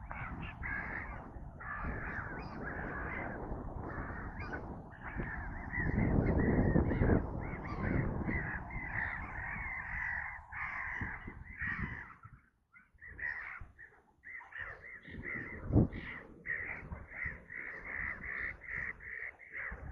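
Birds calling with harsh caws, many short calls, in a quick run of about three a second near the end. A low rumble comes in about six to eight seconds in, and a single thump comes about three quarters of the way through.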